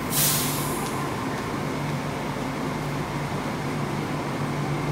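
Bombardier rubber-tyred light rail vehicle: a short hiss of released air just after the start, over a steady low hum.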